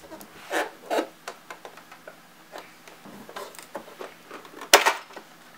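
Hands working the plastic accessory tray of a Singer 7258 sewing machine loose: a run of light plastic knocks and rattles, with one loud sharp click a little before the end.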